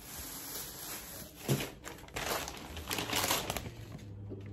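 Thin plastic shopping bags rustling and crinkling as they are handled, in several short bursts, the loudest about a second and a half in and around three seconds in.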